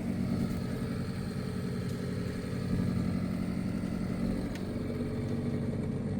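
Refrigerator freezer fan motor running with a steady hum.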